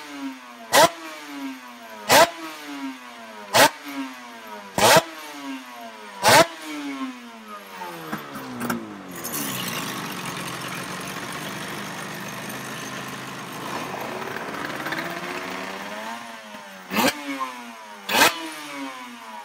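Suter MMX 500's V4 two-stroke racing engine revved in sharp throttle blips about every second and a half, each one dropping quickly back down. Partway through it settles to a steady lower-speed run for several seconds, then the blips start again near the end.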